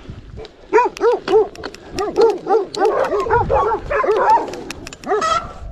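Dogs barking in a quick run of short barks, about three a second, some overlapping.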